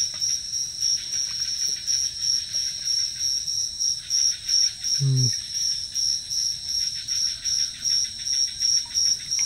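Night-time insect chorus: a high, steady tone pulsing about three times a second over a fainter fast buzz. A brief low voice-like sound comes once, about five seconds in.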